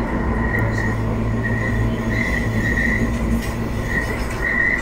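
Edinburgh tram (CAF Urbos 3) running on a curve: a steady low rumble from the wheels and running gear, with the wheels squealing on and off at one high pitch against the curved rail, loudest a little past halfway and again near the end.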